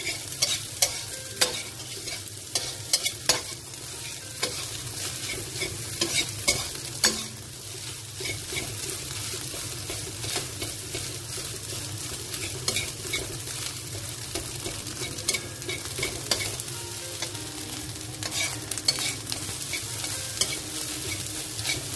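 Fried rice sizzling in a wok while a metal spatula stirs, tosses and scrapes it, with frequent irregular clicks of metal against the pan over a steady frying hiss.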